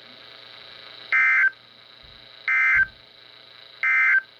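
NOAA Weather Radio SAME end-of-message signal: three short warbling digital data bursts about a second and a half apart, closing the severe thunderstorm warning broadcast. Faint receiver hiss and hum sit between the bursts.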